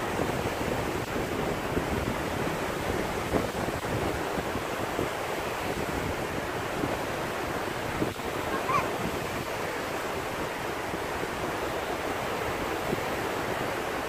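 Small sea waves breaking in shallow water and washing up the shore: a steady, unbroken rush of surf.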